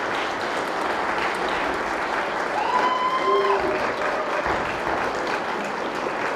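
Applause: steady clapping from a group of people right after a handbell piece, with a short pitched sound about three seconds in.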